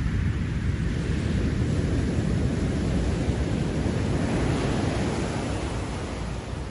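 Ocean surf on a sandy beach: a steady rush of breaking waves with a deep rumble, swelling in the first few seconds and easing off near the end.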